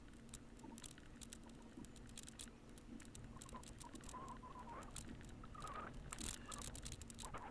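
Faint, irregular patter of small clicks and crackles from movement along a woodland track.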